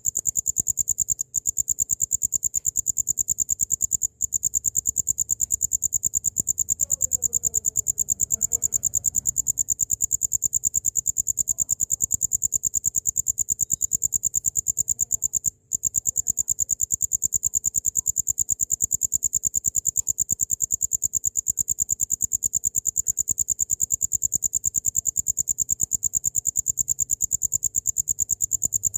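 Cricket (jangkrik) trilling continuously: a high, very rapid pulsed chirp, held without pause apart from three momentary breaks.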